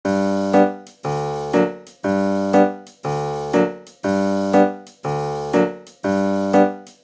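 Background piano music starting abruptly. It plays a repeating pattern: a chord about once a second, with a second chord half a second after each, each dying away before the next.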